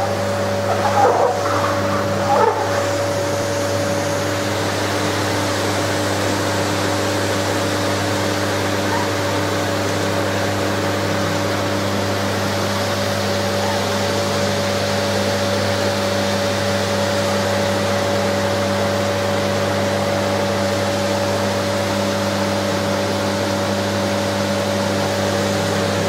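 Vacuum cleaner running steadily, a constant motor hum with a hiss. About one and two and a half seconds in, a puppy cries briefly a few times over it.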